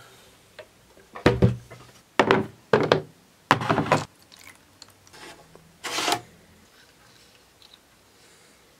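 Darkroom equipment being handled: a photographic enlarger adjusted on its column and a wooden tray moved about, giving about five short knocks and scrapes of wood and metal in the first six seconds.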